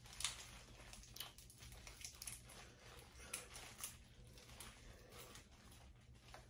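Faint, scattered clicks and crinkles, about one a second, from hands picking at peeled seafood-boil shrimp and shells in a bowl, over a low steady room hum.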